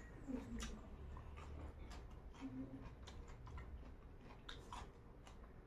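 Faint chewing and mouth sounds of a person eating grilled chicken by hand: irregular small wet clicks and smacks, several a second.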